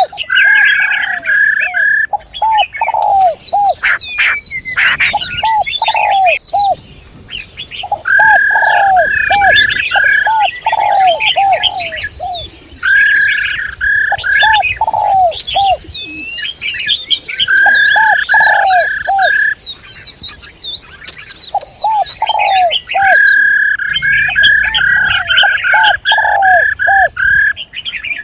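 Several songbirds calling together in repeating phrases: runs of short, low arched notes, a steadier mid-pitched whistled note in bursts, and quick high chirps over the top. These are recorded female bird calls of the kind played to excite males. The calling drops away briefly about seven seconds in, then resumes.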